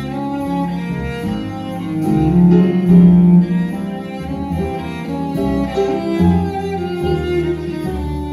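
Live small band playing, bowed cello prominent over piano, double bass and drums; the music swells a little louder about midway.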